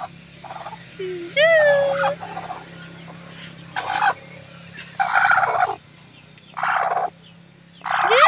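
Mother hen sitting on her chicks, giving a string of short, harsh, raspy calls and a couple of squawks that rise then fall in pitch. These are the defensive calls of a hen guarding her brood as she is approached.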